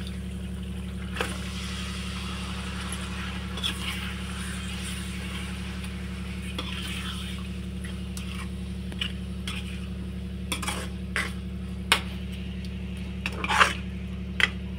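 A metal spoon clinks and scrapes against a steel kadhai as fish pieces are stirred into frying masala, with a light sizzle. A steady low hum runs underneath, and the sharpest clinks come near the end.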